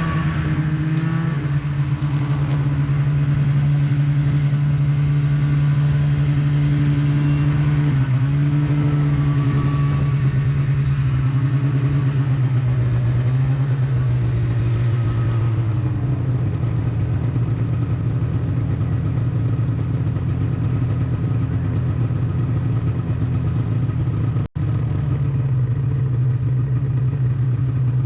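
Snowmobile engine running steadily under way, its pitch dipping briefly about eight seconds in and easing lower midway through. The sound cuts out for an instant near the end.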